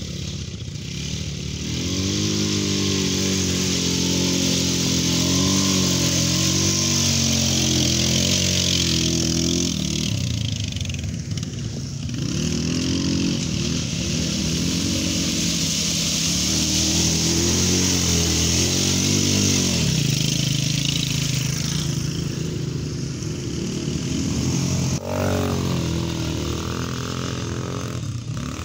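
Small ATV engines of up to 250 cc revving up and easing off again and again as several quads ride one after another through mud.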